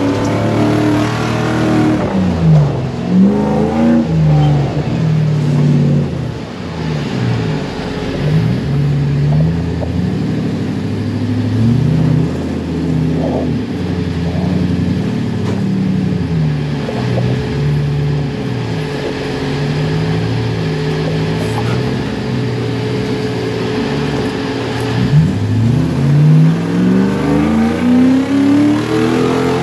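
Off-road buggy's engine revving up and down as it is driven along a dirt track. The revs climb and drop repeatedly in the first few seconds and again near the end, and hold steadier in between.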